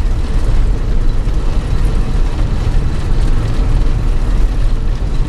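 A vehicle's engine running steadily while driving, a heavy low rumble heard from inside the cab.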